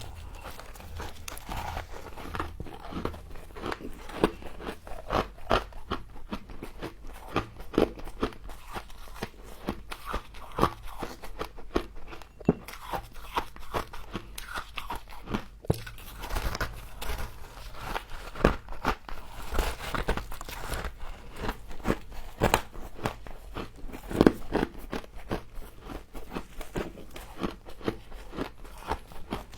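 Freezer frost being bitten and chewed close to the microphone: a steady, irregular run of crisp crunches, several a second.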